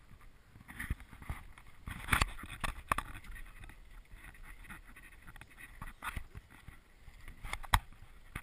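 Irregular knocks and thumps over a low rushing noise: a GoPro in its housing being handled and moved about on a sailboat, with wind and water around the boat. The sharpest knocks come about two seconds in, at three seconds and near the end.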